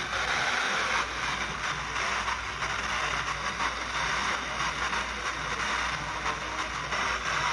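Radio static: a steady hiss with dense crackling over a low hum, with no voice coming through.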